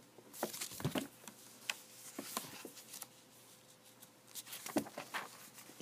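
Paper booklet pages rustling as they are handled and turned, with faint scattered crinkles and taps.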